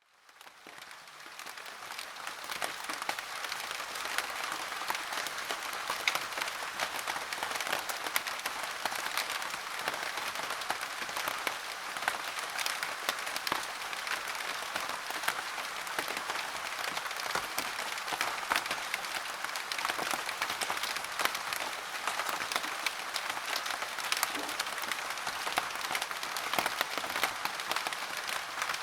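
Heavy rain pattering steadily as a dense crackle of drops, fading in over the first couple of seconds.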